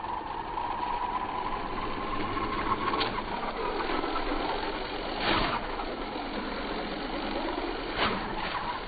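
WLtoys 12428 1/12-scale RC crawler truck driving, its electric motor and gears whining steadily. Short thumps and clatter come about three, five and eight seconds in as it bumps over the curb and rough ground, the one a little after five seconds the loudest.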